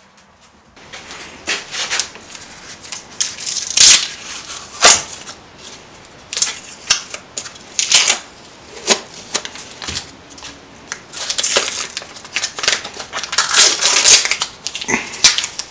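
Blue painter's tape being peeled off a glued-up wooden piece and crumpled in the hands: a string of crackly rips and crinkles, starting about a second in.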